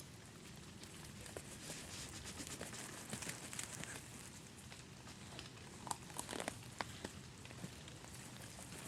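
Tarp fabric being handled: soft rustling and crinkling, with a few sharp clicks about six to seven seconds in.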